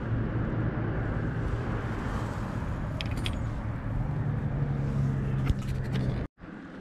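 A distant engine running steadily, its low hum rising a little in pitch about four seconds in, over outdoor background noise with a few faint clicks. The sound cuts off suddenly near the end.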